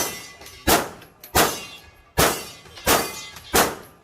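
Gunshots fired at a steady pace, six shots about 0.7 s apart, each with a short ringing tail.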